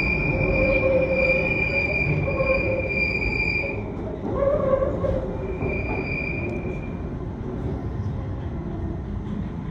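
Underground train running through a tunnel, its wheels squealing on the curves: a high, steady squeal that holds for about four seconds, stops, then returns briefly about six seconds in, over the constant rumble of the train.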